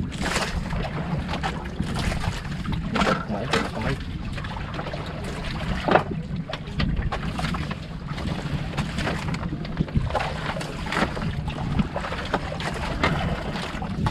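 Wind rumbling on the microphone with sea noise aboard an outrigger boat, under scattered short knocks and clinks, the sharpest about six seconds in, as people eat off plates on the deck.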